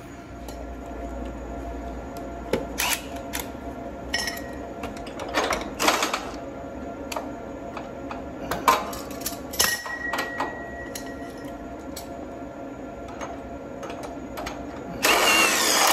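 Cordless drill/driver running in short bursts as it turns the adjusting bolts of a conveyor belt's spring take-up tensioner, with one longer, louder run near the end. A steady hum lies underneath.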